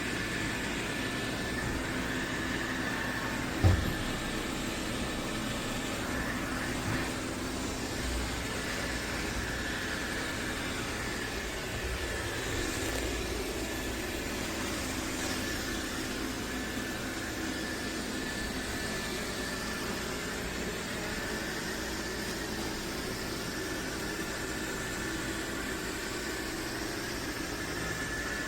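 MOVA P10 Pro Ultra robot vacuum running, a steady fan whine over a low hum, with one sharp thump a little under 4 seconds in and a lighter knock a few seconds later.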